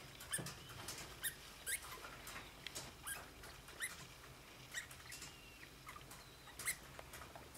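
Degus in a nest of shredded tissue paper: faint rustling of the paper with short, high squeaks and chirps every second or so.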